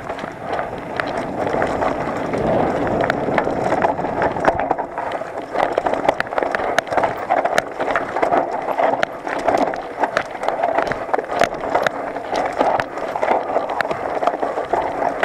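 Mountain bike descending a rough dirt trail: continuous tyre rumble over dirt and loose stones, with frequent sharp clicks and rattles from the bike over the bumps.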